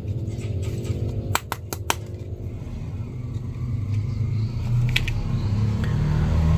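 Hard plastic action figure being handled and posed, with a quick run of sharp plastic clicks about a second and a half in and another click near the end, over a steady low hum that grows louder toward the end.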